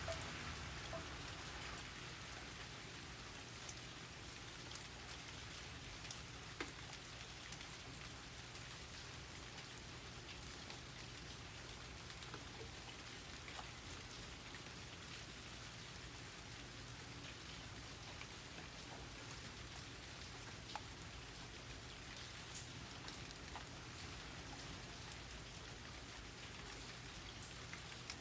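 Steady soft rain falling, with scattered single drops ticking on nearby surfaces.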